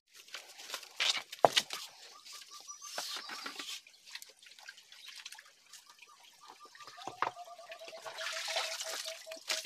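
Creek water trickling and dripping among boulders, with footsteps and sharp knocks and scuffs on rock and dry bamboo leaves, the loudest about a second and a half in. In the last few seconds a rapid pulsed animal call joins in.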